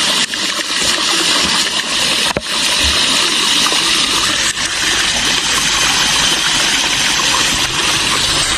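Water gushing steadily from an irrigation pipe fed by pumped groundwater, with a few faint clicks.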